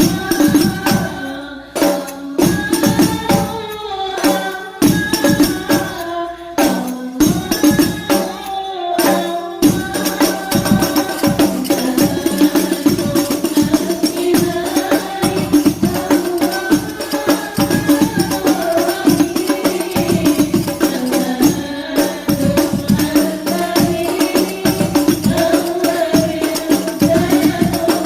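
Habsyi ensemble playing rebana frame drums in a dense, driving rhythm under group singing of Arabic devotional songs. The drumming is broken by a few short gaps in the first third, then runs on without pause.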